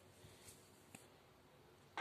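Near silence: room tone, with two faint ticks about half a second and a second in.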